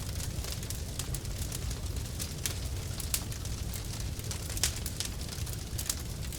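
A car fire burning after an explosion: a steady low rumble of flames with irregular sharp crackles and pops throughout.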